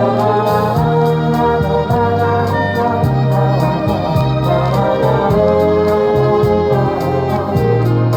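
Music: an instrumental passage of a soft-rock ballad, with held keyboard chords, a bass line and a steady ticking hi-hat beat.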